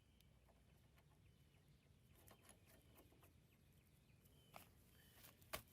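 Near silence: faint short bird chirps in the background and a few light clicks of parts being handled, with one sharper click near the end.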